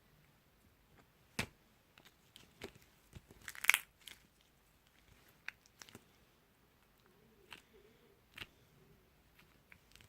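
Slime being squeezed and worked by hand: scattered clicks and pops, with a denser, louder run of crackles peaking a little under four seconds in.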